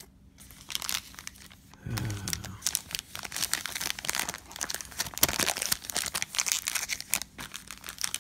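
Foil wrappers of Panini Prizm basketball card packs crinkling as they are handled and torn open, in quick irregular crackles.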